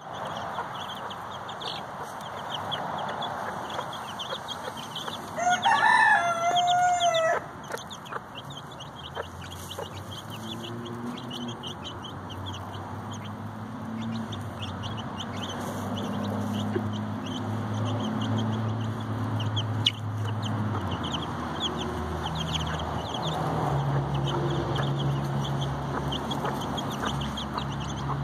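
Baby chicks peeping continuously in rapid, high, short notes. About six seconds in, a rooster crows once, the loudest sound, a pitched call of about two seconds that falls at the end. A low steady hum sets in from about nine seconds.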